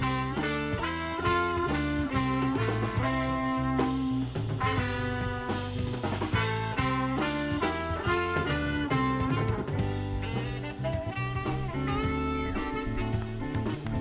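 Live funk-fusion band playing: trumpet, saxophone and trombone holding notes together over electric guitar, bass guitar and drum kit, with a steady beat.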